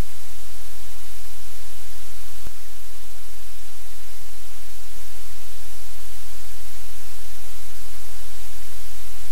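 Loud steady hiss with a low hum beneath it; a faint click about two and a half seconds in.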